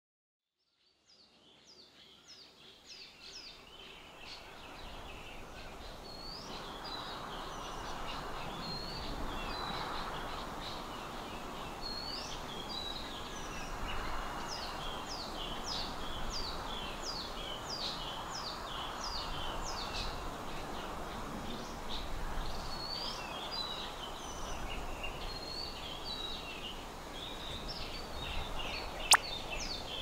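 Many small birds chirping and singing over steady outdoor background noise, fading in from silence over the first few seconds. A single sharp click near the end.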